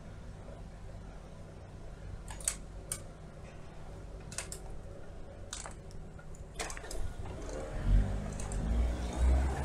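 Motor vehicle traffic: an engine running low and steady, with a few sharp clicks in the middle, then a car engine growing louder as it accelerates near the end.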